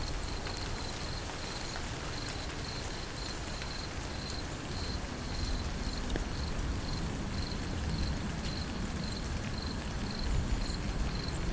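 Steady rain falling, with a cricket chirping in short, evenly spaced high pulses over it.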